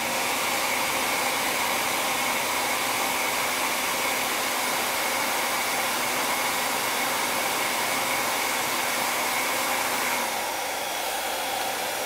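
ghd Air hair dryer blowing steadily: rushing air with a steady high whine from the blower motor, its cool shot button pressed to cool the air. About ten seconds in, the sound drops a little and the whine fades.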